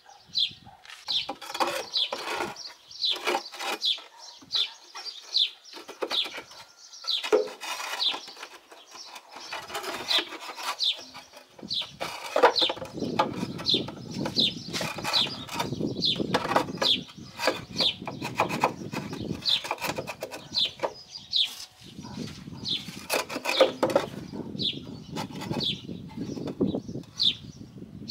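Small birds chirping over and over, short high falling calls a few times a second. There are a few sharp knocks, and from about halfway a rough, lower noise that comes and goes.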